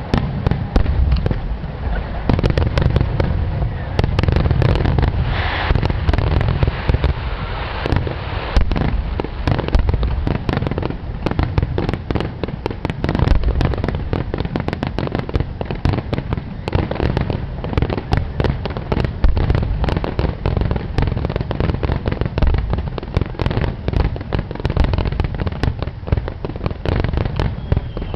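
Rapid-fire aerial fireworks display: shells bursting one on top of another in a dense, continuous barrage of booms and crackles, with no let-up.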